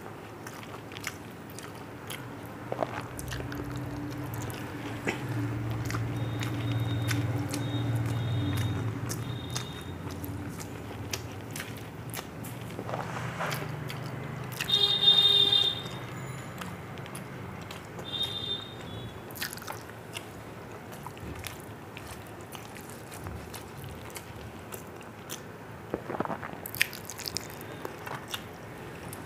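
Close-miked eating: chewing and wet mouth smacks and clicks, with a hand squishing rice on a steel plate. About halfway through comes a brief high-pitched squeak, the loudest sound, and a fainter one follows a few seconds later.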